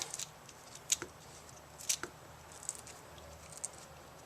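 Faint clicks and ticks of small hand work on an extension cord plug's wiring, the two sharpest about a second apart near the start, then a few lighter ones.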